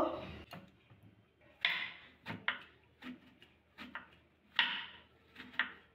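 Kitchen knife chopping raw eggplant on a wooden cutting board: about eight separate knocks as the blade cuts through the flesh and hits the board, at a slow, uneven pace.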